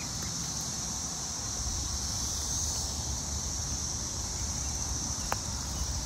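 Chorus of periodical cicadas, a steady high-pitched hum that swells slightly midway, over a low rumble of wind on the microphone. One faint click near the end.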